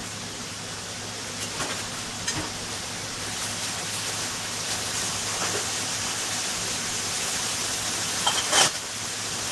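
Chopped Chinese cabbage greens sizzling steadily in oil in a frying pan over a gas flame, with a few faint clicks and one short knock near the end.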